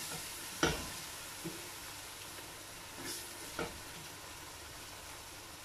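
Curry base of onions, tomato and spices sizzling in a stainless steel pot as a wooden spoon stirs it, with a few knocks of the spoon against the pot, the loudest about half a second in.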